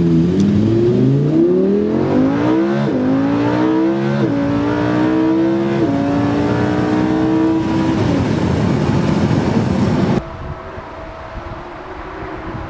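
Lamborghini Huracán LP610-4's V10 accelerating hard, its pitch climbing and dropping back at three quick upshifts, then the note falling away into a rush of noise. About ten seconds in, the sound cuts off suddenly to a quieter, steady engine drone.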